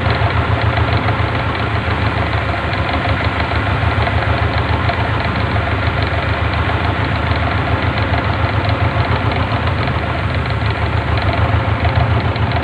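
Vehicle engine idling and running at crawling speed in slow stop-and-go traffic, a loud steady low throb heard from on board the vehicle it powers.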